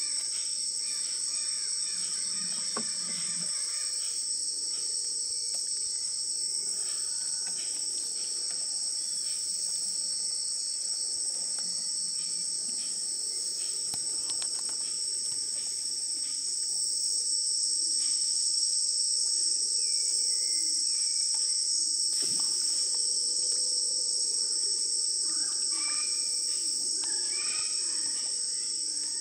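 Steady, high-pitched chorus of Amazon rainforest insects, holding two unbroken pitches throughout. A few faint short chirps come through near the end.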